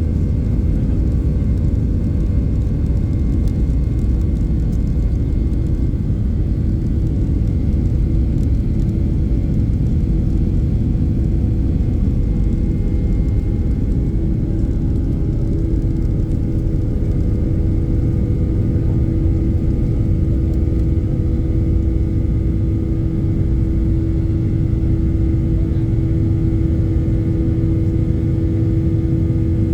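Boeing 737-800's CFM56-7B turbofan engines running at high takeoff/climb thrust, heard inside the cabin as a steady, loud rumble with a humming engine tone that grows stronger about halfway through.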